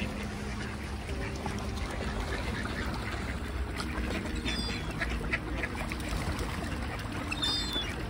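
A flock of mallard ducks quacking, with two short high calls about four and a half and seven and a half seconds in.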